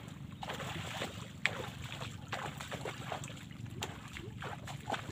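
Water sloshing and splashing in short, irregular splashes as a man wades and works in waist-deep reservoir water, over a steady low hum. There is one sharp knock about a second and a half in.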